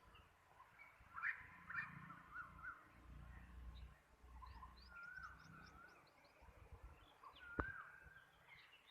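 Several small birds chirping and whistling, faintly, with short bending notes and a quick run of high rising notes about five seconds in. A sharp click sounds near the end, over a low rumble.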